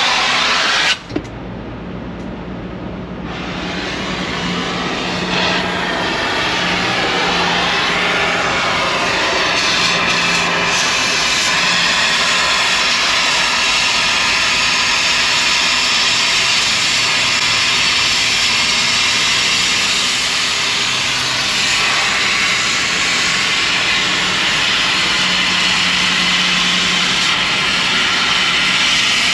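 Oxy-fuel cutting torch running with a steady loud hiss as it cuts the old brake spider off a semi-trailer axle. The hiss drops away suddenly about a second in, then builds back up over the next few seconds.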